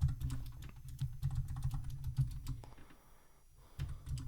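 Typing on a computer keyboard: a quick run of keystrokes, a pause of about a second, then more keystrokes near the end.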